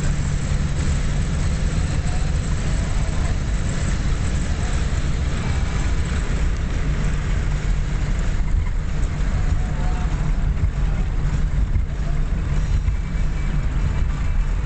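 1957 Chrysler Windsor's V8 engine running at a steady cruise, heard from inside the cabin as a constant low drone mixed with road and wind rush. The hiss eases a little about eight seconds in.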